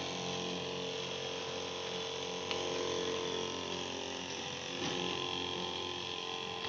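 12-volt DC sprayer-pump motor running steadily with an even hum of several tones, pumping water out of the spray gun as a fine mist.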